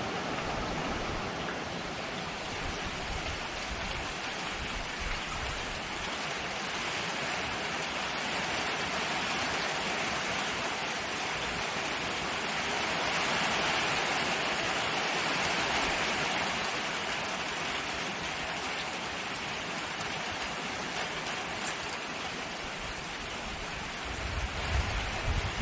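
Hurricane rain pouring steadily, heard from under a metal porch roof, swelling a little about halfway through. A low rumble picks up near the end.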